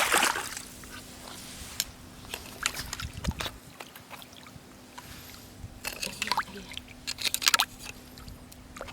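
Water trickling and sloshing, with scattered scrapes and clicks, as wet sand and shallow water are dug through to get at a crab. Louder splashing and scraping comes just at the start and again about six to seven and a half seconds in.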